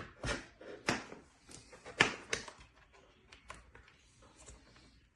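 Handling sounds of cables being plugged into and pulled from a USB-C docking station's ports: a run of sharp clicks and knocks, loudest about two seconds in, then lighter ticks.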